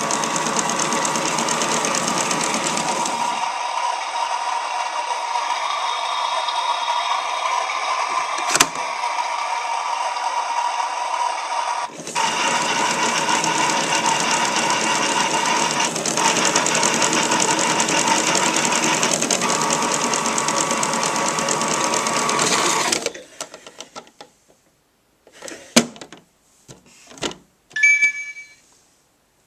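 Barbie toy washing machine playing its electronic wash-cycle sound effects through a small speaker: a continuous whirring, sloshing noise that changes character twice before cutting off about three quarters of the way through. After it come a few clicks and short high beeps near the end.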